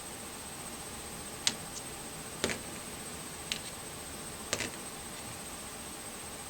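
Four sharp taps about a second apart, a pointer tapping rectangles on a wall sound chart, two of them with a light double tap.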